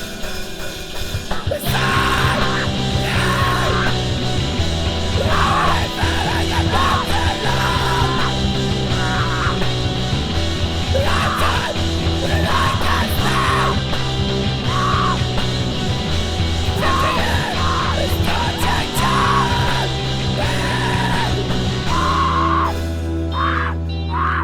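Loud punk rock with distorted electric guitars and drums, and a voice yelling phrases over it; the band drops away near the end.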